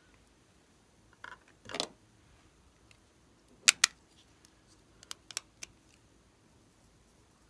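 Small plastic clicks and taps of lipstick tubes and caps being handled. A short scrape comes a little under two seconds in, two sharp clicks just before four seconds, and a few lighter clicks about a second later.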